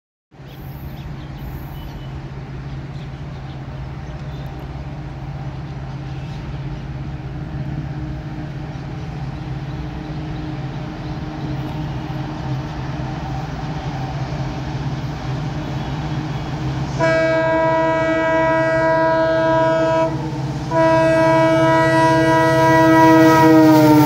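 Indian Railways WDP4D diesel locomotive, with an EMD 16-cylinder two-stroke engine, approaching under power and growing steadily louder. Its multi-tone air horn sounds in two blasts, the first about three seconds long. The second starts a second later and runs until its pitch drops as the locomotive passes.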